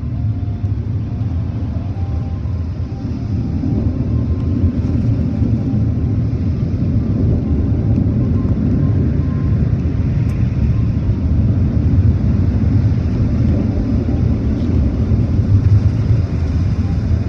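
Automatic car wash brushes and water spray working over the car's body, heard muffled from inside the cabin as a steady low rumble that grows slightly louder.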